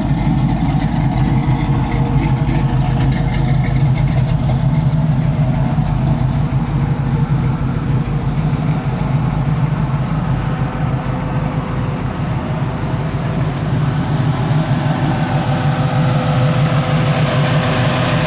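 1973 Chevrolet Camaro Z28's 383 cubic inch stroker V8 running at a steady idle through its exhaust, deep and even.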